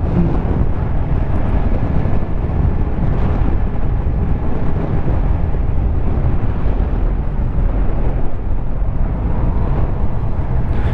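Riding sound from a 2016 Suzuki GSX-R750's inline-four engine running steadily at about 30 mph, with wind rushing over the microphone.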